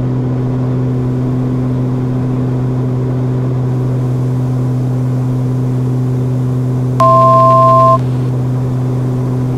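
Steady drone of the Beechcraft King Air F90's twin turboprops in the climb. About seven seconds in, a two-tone electronic beep from the cockpit sounds for about a second.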